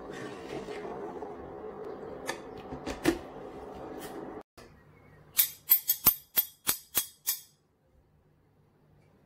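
Thick soup being stirred with a ladle in a pot, with a couple of sharp knocks. It cuts off suddenly after about four seconds, followed by a quick run of about seven sharp clicks and then near silence.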